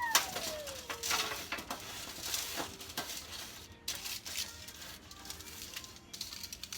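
Hands tossing oiled, seasoned potato fries on a baking pan: irregular soft clicks, taps and rustles. A short high squeal falls in pitch during the first second or so.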